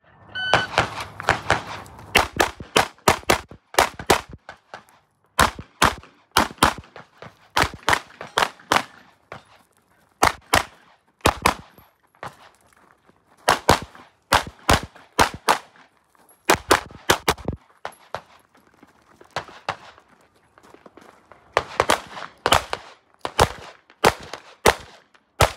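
A shot timer's start beep, then a Glock 17 Gen 5 9mm pistol firing rapid strings of shots, many in quick pairs, broken by short pauses of about a second between strings.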